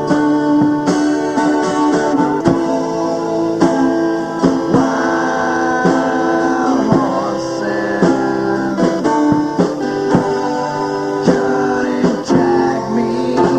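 Guitar music: strummed chords and picked notes played without singing.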